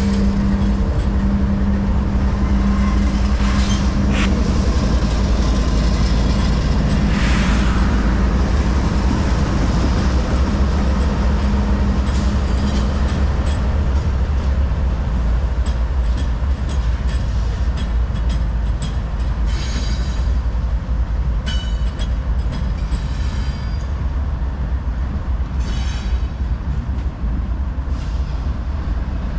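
A lash-up of diesel-electric freight locomotives rolling past close by: a loud, steady low rumble of engines and wheels on rail, with a steady hum that drops out about halfway through. In the second half a few short, sharp squeals cut in.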